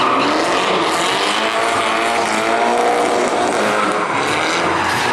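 Nissan S13 drift car sliding sideways, its engine revving up and down in pitch over the hiss and screech of the spinning rear tyres.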